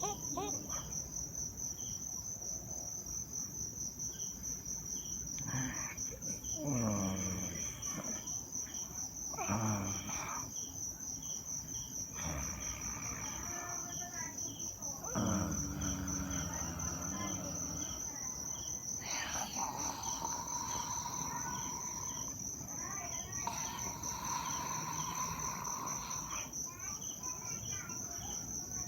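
Cricket chirping in a steady, high pulsing trill. Louder sounds of unclear source break in several times over it.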